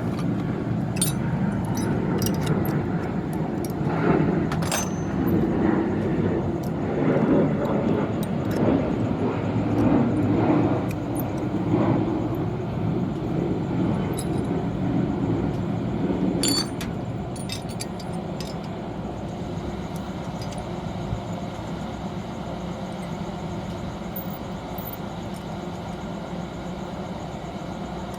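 Steady low mechanical hum with scattered metallic clinks and knocks over the first half; the clinks stop and the hum drops a little about sixteen seconds in.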